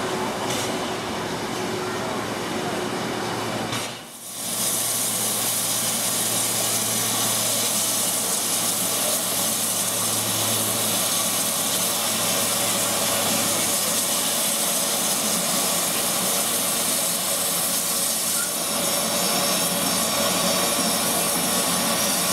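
Steam locomotives at a station: a quieter hiss for the first few seconds, then from about four seconds in a loud, steady hiss of escaping steam from a larger black tender steam locomotive standing at the platform.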